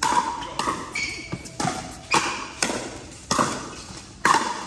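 Pickleball rally: paddles hitting the hollow plastic ball and the ball bouncing on the court, about seven sharp pops in under five seconds, echoing in a large hall, with a brief squeak about a second in.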